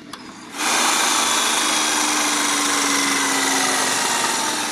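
A loud, steady machine noise starts abruptly about half a second in and runs on evenly, with a faint low hum under it that slowly drops in pitch.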